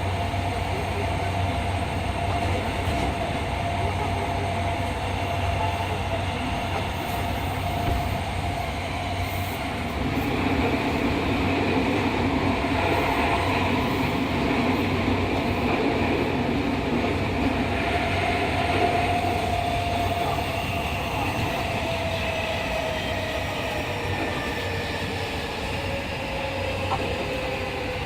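Fukuoka City Subway 2000-series car with a Hitachi hybrid SiC VVVF inverter and WN-drive traction motors, running in the tunnel: steady motor and inverter tones over wheel and running noise. The noise swells for several seconds in the middle, then the tones slide down in pitch near the end as the train slows.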